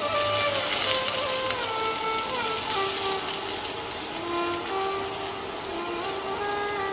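Sliced onions sizzling in hot oil in a frying pan, starting suddenly as they go in. Background instrumental music with a slow, stepping string melody plays throughout.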